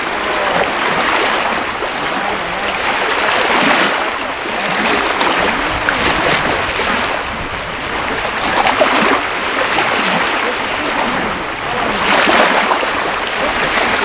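Sea waves washing onto a beach, swelling and easing every few seconds.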